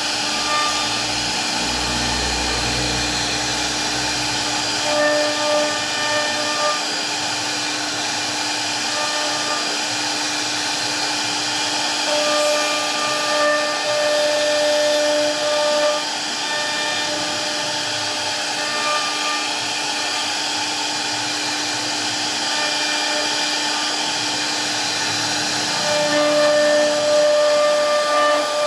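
CNC router spindle running and cutting wood: a steady rushing noise with a whine that strengthens and fades several times as the bit works through the cut.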